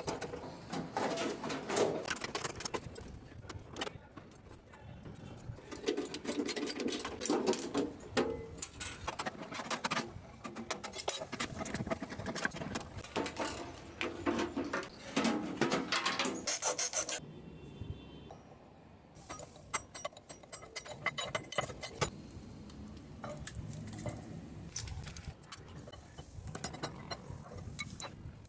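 Metal parts and tools clinking, rattling and knocking irregularly as a microwave oven is taken apart for scrap, with a quieter pause about two-thirds of the way through.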